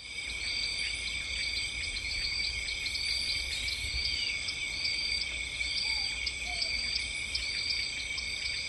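A steady chorus of insects: several shrill high tones held without a break, one of them pulsing about twice a second, with a couple of faint bird calls behind.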